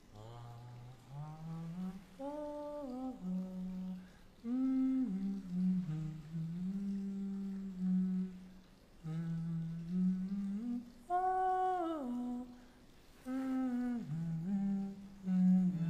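A man humming a slow melody in short phrases, his voice gliding up and down between notes, with the highest swell about eleven seconds in.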